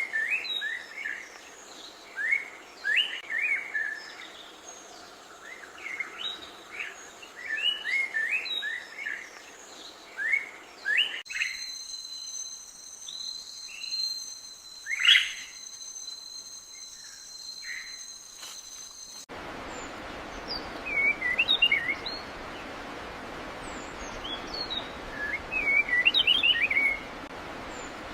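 Small birds chirping and twittering in quick, rapid calls. The sound changes abruptly twice, and in the middle stretch a steady high-pitched tone runs under sparser calls.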